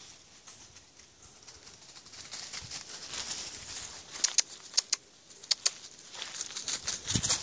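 Footsteps rustling and crunching through dry fallen leaves on a woodland floor, quiet at first and growing louder, with a few sharp clicks a little past the middle.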